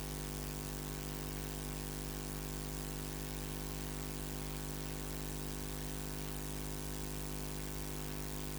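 Steady electrical hum with a buzz of evenly spaced overtones and an even hiss, unchanging throughout. It is the noise of a faulty audio feed that carries no microphone sound, a technical problem with the sound.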